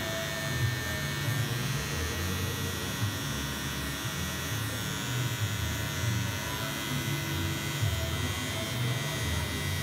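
Electric hair clippers running steadily while cutting short hair at the back of a head, behind the ear.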